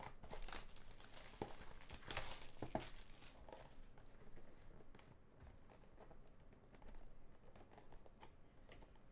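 Plastic shrink wrap crinkling as it is crumpled and pulled off a trading-card box, with the loudest crackles in the first few seconds, then fainter handling of the cardboard box as its flap is worked open.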